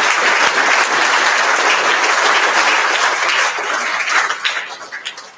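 Audience applauding, dying away near the end to a few scattered claps.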